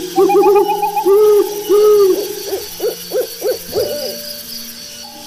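Owl hooting: a quick run of short hoots, then two longer drawn-out hoots, then several shorter calls that rise in pitch.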